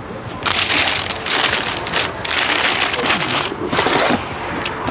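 Loud crinkling and rustling of packaging, handled in several bursts with short breaks, from about half a second in until near the end.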